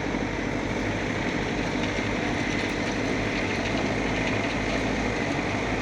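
Heavy diesel engine of construction machinery running steadily at an even speed.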